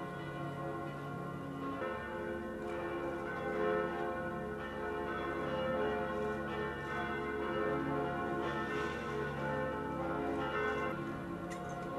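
Church bells ringing: a stroke every second or two, the tones overlapping and dying away slowly over a low hum.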